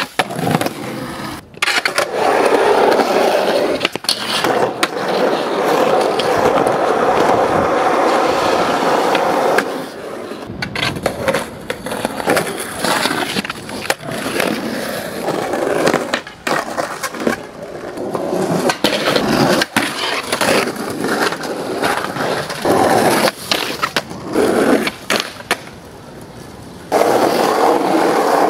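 Skateboard wheels rolling on concrete and asphalt, broken by many sharp clacks of the board popping, hitting ledges and landing. The rolling noise changes abruptly twice, about ten seconds in and near the end.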